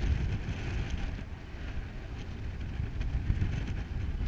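Wind buffeting the action camera's microphone, a low, uneven rumble with some hiss that is stronger in the first second or so.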